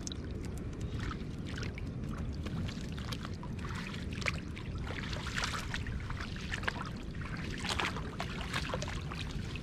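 Water splashing, sloshing and dripping in irregular bursts as hands and a wet cast net are worked in shallow water, getting busier about halfway through, over a steady low rumble.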